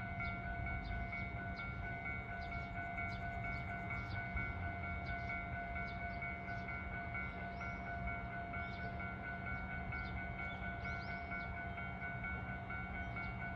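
A steady electronic warning tone held on three pitches, over a low steady rumble, with faint short chirps above it.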